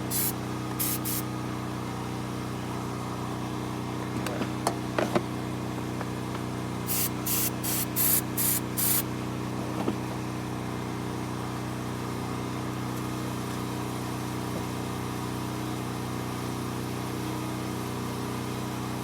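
Aerosol starter fluid sprayed in short hissing bursts, two at the start and five in quick succession about seven seconds in, priming the engine for a start. A portable generator hums steadily underneath, with a few knocks about four to five seconds in.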